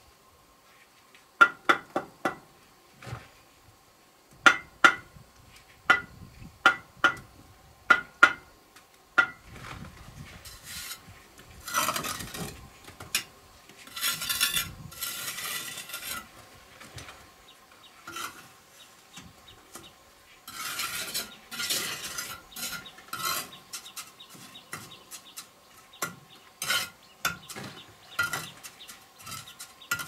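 Steel bricklaying trowel working brick and mortar: sharp irregular taps against the brick in the first several seconds and again near the end, with stretches of scraping in between as mortar is spread and struck off the joints.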